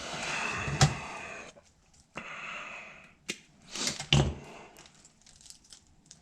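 Wiring harnesses being handled, rustling in two stretches, with a few sharp knocks and clicks, the loudest about four seconds in.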